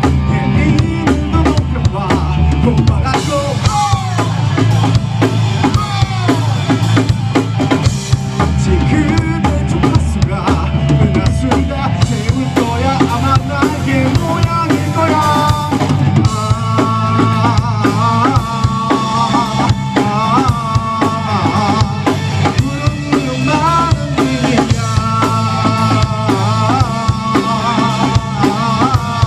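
A live band playing, with the drum kit loud in front: kick and snare hits over a steady bass. A bending melodic line rides on top, stronger from about halfway through.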